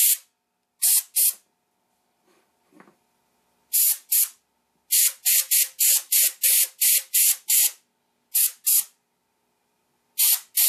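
Compressed-air blow gun giving repeated short squirts of air, mostly in pairs with a quick run of about eight in the middle, blown into a plaster slip-casting mold to pop the stuck clay piece loose.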